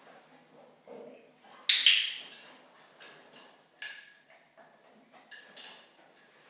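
Sharp clicks. The loudest comes about two seconds in and is doubled, with fainter single clicks near four and five and a half seconds.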